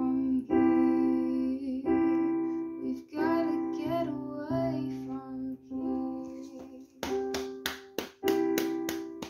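Electronic keyboard with a piano sound playing sustained chords while a girl sings, the song winding down to a held final chord. About seven seconds in, a run of sharp claps starts over the fading chord.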